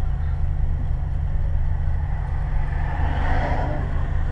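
Steady low rumble of a car idling at a standstill, heard from inside the cabin, with another car passing close by about three seconds in.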